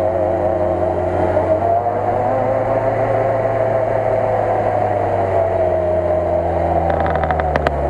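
Lada Niva engine held at high revs as its wheels spin in deep mud, the pitch wavering slightly as the tyres slip. A quick run of clicks near the end.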